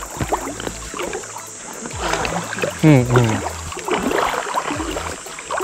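Water sloshing around a float tube as the angler moves on the water, with a low uneven rumble. A short burst of voice about three seconds in.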